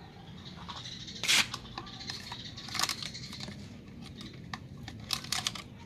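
Water being poured into a Sanyo water pump to prime it, with a few short, noisy splashing sounds, the loudest about a second in and more near the end.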